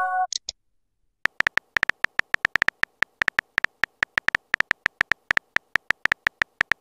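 Texting-app sound effects: a short chiming message-sent tone dies away in the first half second. After a brief pause comes a rapid run of simulated phone-keyboard typing clicks, several a second.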